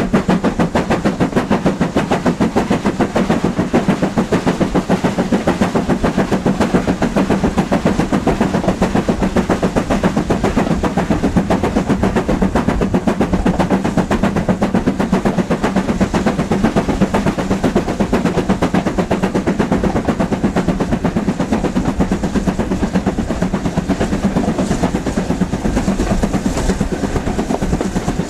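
BR Standard Class 7 'Britannia' Pacific 70013's two-cylinder steam engine working at speed, heard from the train behind it: a fast, even beat of exhaust with the running clatter of the wheels on the rails.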